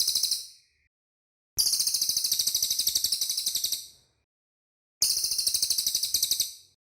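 Cililin birdsong: rapid, high-pitched trills of about nine notes a second, in bouts. One tails off just after the start, a long one of about two and a half seconds begins about a second and a half in, and a shorter one begins about five seconds in.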